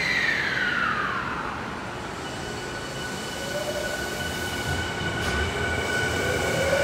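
Tokyu 5000-series electric train pulling out of an underground station. There is a falling electrical whine as it starts, then steady high whines and a motor tone that rises slowly as it gathers speed. A rumble of the cars grows louder toward the end.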